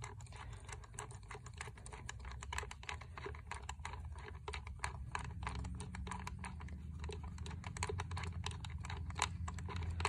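Quick, irregular small metallic clicks and taps of an 8 mm wrench working a coil-pack hold-down bolt loose, the bolt being backed out.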